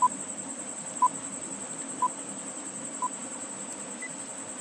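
Countdown timer beeping once a second: four short beeps of the same pitch, then a fainter, higher beep near the end, over a steady high-pitched hiss.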